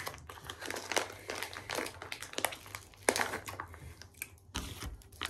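Plastic packaging of a packet of seafood sticks crinkling and crackling in irregular bursts as it is handled and opened by hand.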